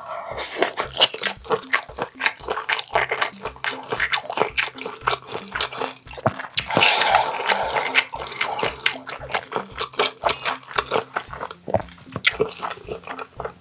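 Wet, sticky clicks and squelches of boiled roe-filled baby octopus (jjukkumi) being handled and pulled apart, coming thick and irregular and busiest about halfway through.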